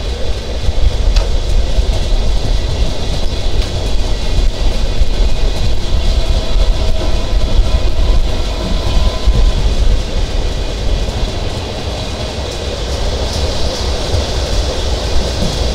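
Sundarban Express intercity passenger train running along the track, a steady low rumble of wheels on rail that eases a little about ten seconds in.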